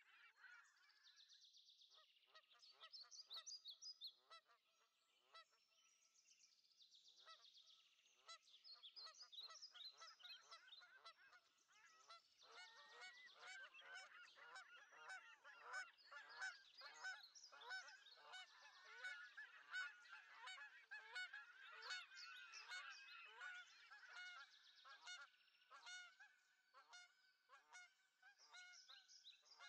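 A group of swans calling on the water: faint, many short calls overlapping, sparser for a moment about five seconds in, then thicker and busier from about eight seconds on.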